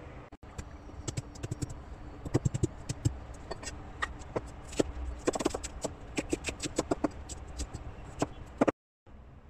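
Irregular taps and knocks of a kitchen knife and shallots on a wet wooden cutting board, some in quick clusters, stopping abruptly near the end.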